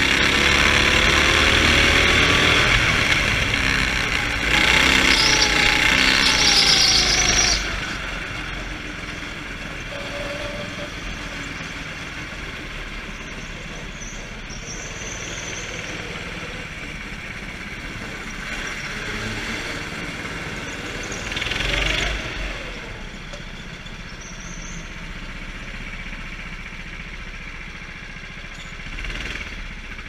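Go-kart engine at full throttle, its pitch rising and falling through the corners; about seven seconds in the throttle is lifted and the engine drops to a much quieter, low run as the kart slows, with a brief rise in level around twenty-two seconds.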